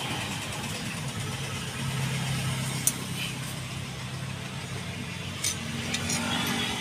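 An engine running steadily at idle in the background, a constant low hum, with a few short sharp metallic clicks from hand tools, about three seconds in and again near the end.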